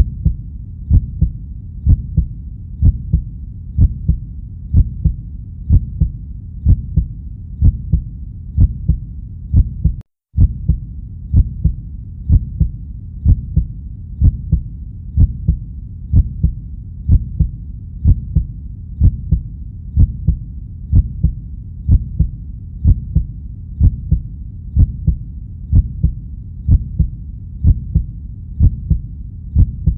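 Heartbeat sound effect: a steady lub-dub heartbeat at 62.5 beats per minute, pairs of low beats repeating evenly over a constant low rumble. The sound cuts out completely for a split second about ten seconds in, then carries on.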